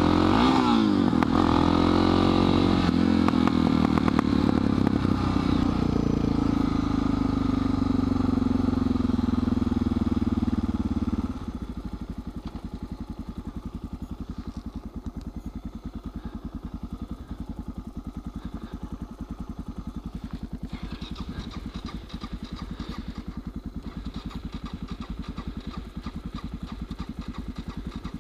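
Suzuki DR650 supermoto's single-cylinder engine running under way with wind rush, its pitch rising and falling. About eleven seconds in it drops abruptly to a steady idle.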